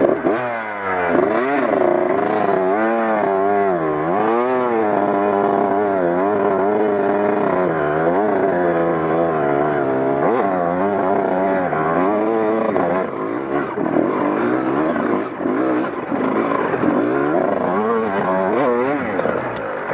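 Dirt bike engine revving up and down over and over as the bike pushes through deep water, with water splashing around the front wheel.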